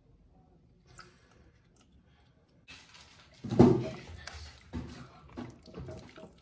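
Silicone whisk mixing soft butter, sugar and vanilla in a glass bowl: after a quiet start, wet squishing and scraping strokes begin a little under three seconds in, the loudest about a second later, then keep going unevenly.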